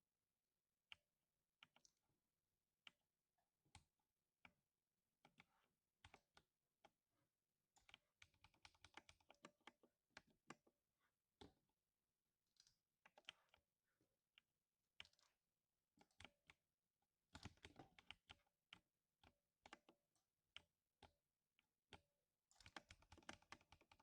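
Typing on a 60% mechanical keyboard with lubed silver switches. Single, evenly spaced keystrokes give way to three quick flurries of rapid typing, at about eight seconds, seventeen seconds and near the end.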